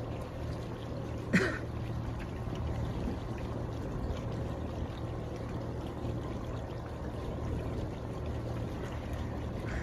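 Water trickling and splashing along a slowly moving sailboat's hull over the steady low hum of its engine. One short sharp knock about a second and a half in.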